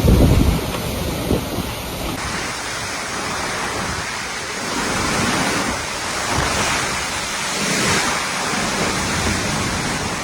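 Hurricane wind gusting, with a heavy rushing noise of wind and water that swells and eases in surges. The wind buffets the microphone hard at the very start, and the sound changes abruptly about two seconds in.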